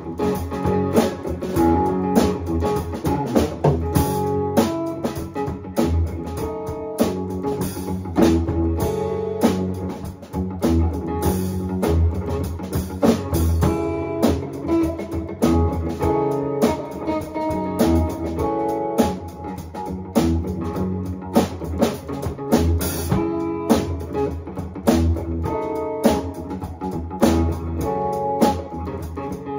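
A band playing a song live, without vocals: a drum kit being played, with a guitar over it.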